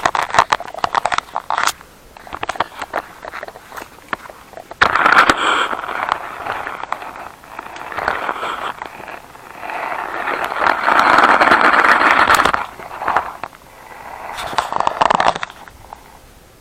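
Packaging crinkling and crackling in irregular bursts as it is handled and opened, stopping shortly before the end.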